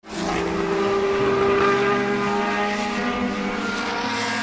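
Formula 1 cars' 1.6-litre turbocharged V6 engines running at high revs as several cars race together, their pitches changing in steps, over a hiss of tyre and air noise.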